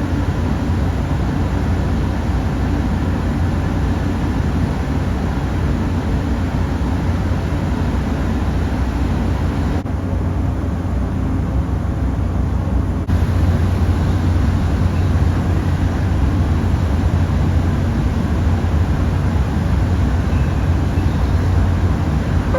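Steady low rumble of a ferry's engines and machinery, with an even hiss over it. The sound shifts slightly about ten seconds in and again a few seconds later.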